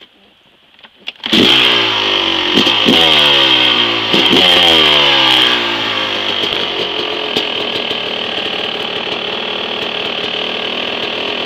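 Yamaha YZ250 two-stroke single-cylinder dirt bike engine comes in suddenly about a second in and is revved in three or four blips, each falling away in pitch. It then runs steadily in second gear under way, nearly out of fuel, which the owner says makes it boggy.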